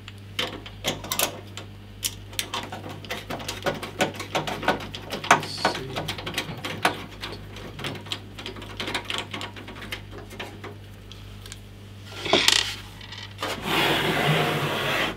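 Small irregular metal clicks and taps of a screwdriver working at the expansion-slot cover of a PC case. Near the end comes a loud scrape, then a sustained scraping rush as the case is turned round on the desk.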